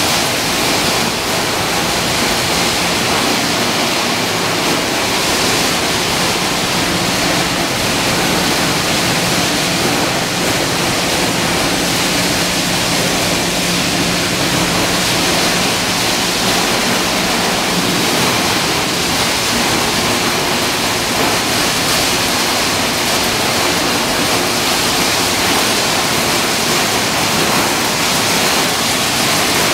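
Corn flakes production line machinery running with a steady, loud rushing noise. A low hum joins in for about ten seconds in the middle.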